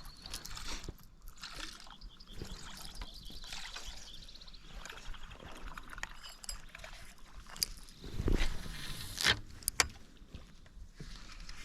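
Water sloshing against a fishing boat's hull, with a louder rush of noise about eight seconds in and a couple of sharp clicks soon after.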